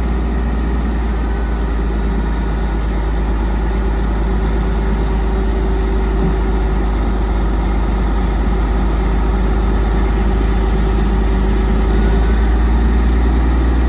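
Diesel engine of a 2016 Western Star 4900SF dump truck idling steadily, with a steady hum over it, while the dump body is lowered. The sound grows slightly louder toward the end.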